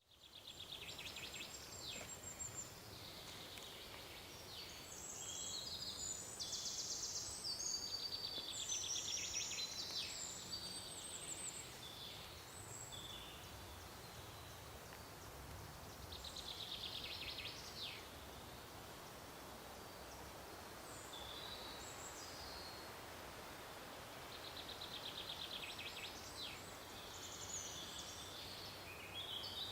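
Several songbirds singing in short, high chirping phrases that come in bouts with brief pauses, over a faint steady hiss of forest ambience.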